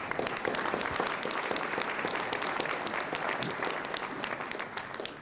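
Audience applauding: a dense patter of many hands clapping that starts suddenly and fades out near the end.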